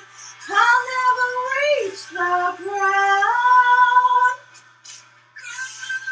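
A woman singing alone, unaccompanied, in high held notes that slide from one pitch to the next, with a brief break about three-quarters of the way through.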